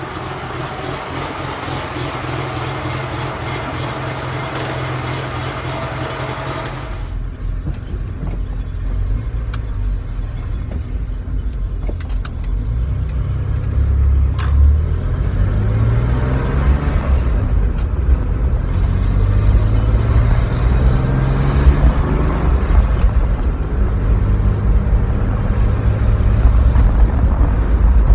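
Porsche 911 SC's air-cooled flat-six engine running as the car pulls away, heard from outside. Then, from inside the cabin, the engine revs climb in several rising pulls, each dropping back at a gear change, over wind and road rumble.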